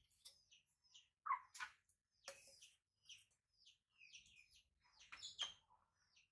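Faint scattered high-pitched chirps and squeaks, with clicks and short rustles of plastic bottles being handled, the loudest about one and a half, two and a half and five and a half seconds in.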